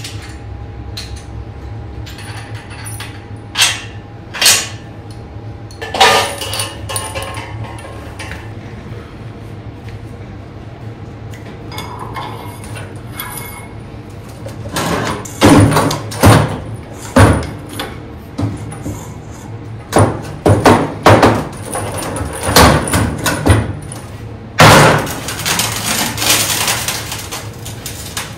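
Steel parts clanking and knocking as coil springs, a shaft and a cast iron pulley are handled and fitted together on a steel workbench, over a steady low hum. The knocks come singly at first, then in quick clusters, with a longer, louder noisy stretch lasting a few seconds near the end.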